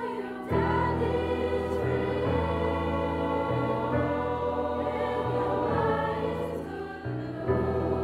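A high-school choir sings long held notes over an orchestra, with low bass notes moving underneath. The music comes in about half a second in.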